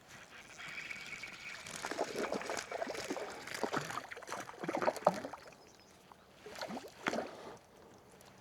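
Water splashing and sloshing in irregular bursts as a small trout thrashes at the surface on the line, loudest in the first five seconds with one more splash a little before seven seconds.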